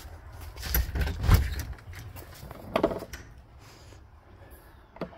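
A house door being opened: handle and latch clicking with knocks and a low thud about a second in, then a sharp click a little under three seconds in and a smaller one near the end.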